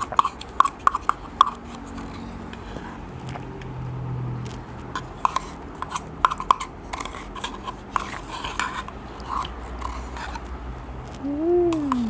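A spoon scraping and tapping round the inside of a plastic yogurt cup to get out the last of the yogurt, in many short irregular scrapes. Near the end there is a brief hummed 'mm' that rises and falls in pitch.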